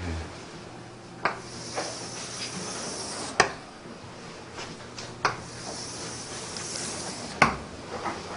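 Chalk drawing long horizontal lines across a blackboard: a sharp tap each time the chalk strikes the board, about every two seconds, four in all, with a steady high scraping hiss as each line is drawn.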